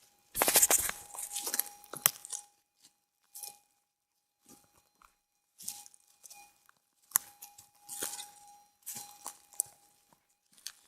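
Minelab SDC 2300 metal detector's threshold tone humming steadily through its speaker, under irregular bursts of crackling, rustling noise and a few sharp clicks. The crackling is loudest in the first couple of seconds.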